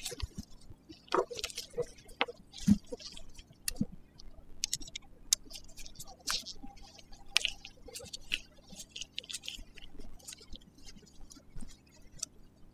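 Scattered small metallic clicks, taps and brief scrapes as a hex key unscrews the pad retention bolt of a Tektro hydraulic disc brake caliper held in the hands, with a soft thump a little under three seconds in.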